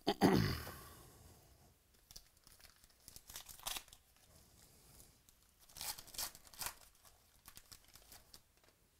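Trading card pack wrapper being handled and torn open, with short crackling bursts of tearing and crinkling about three and six seconds in. The loudest sound is a sudden heavy rustle-thud right at the start as the stack of packs is handled.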